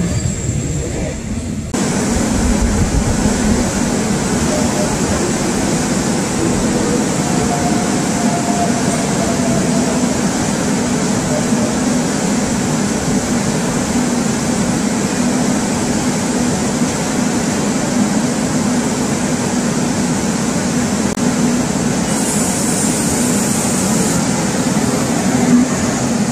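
Subway train running: a steady rumble with a constant low hum, getting louder about two seconds in, with a short high hiss about three-quarters of the way through.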